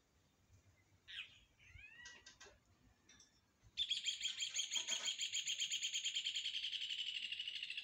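A small songbird chirping a few times, then singing a loud, rapid, high-pitched trill that starts a little under four seconds in and is held for several seconds.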